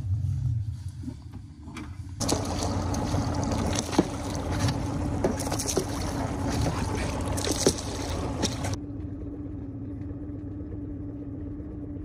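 A small boat's motor hums steadily at one pitch. For the first two-thirds, splashing water and a few sharp knocks sound over it as a trap line is hauled into an inflatable boat. After that the hum carries on alone.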